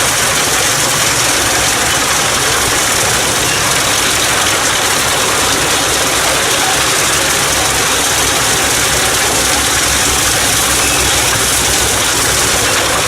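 Fendt tractor engine running steadily, driving a Pezzolato PTH 700 G drum wood chipper through the PTO: a loud, even mechanical noise.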